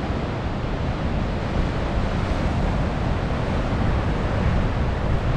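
Southern Ocean surf breaking against the cliffs, a steady rushing wash, with wind buffeting the microphone.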